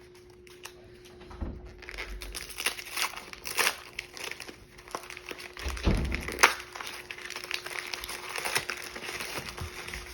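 Packing material crinkling and rustling as a cuckoo clock's weights are unwrapped by hand, with a low thump twice.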